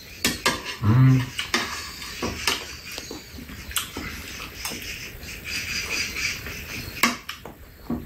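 Metal spoons clicking and scraping against an ice cream tub and a plate, with eating sounds. A short hum from one of the eaters about a second in is the loudest sound.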